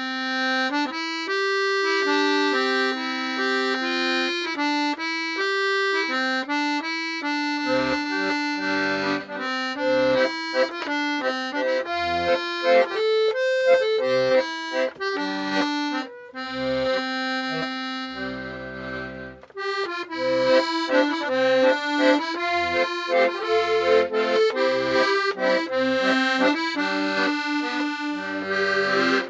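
Hohner Arietta accordion playing a short tune: a melody on the treble reeds alone at first, with bass notes and chords joining about eight seconds in. The reeds have been freshly cleaned and revalved but not yet tuned, and a few bass reeds sound a little out of tune.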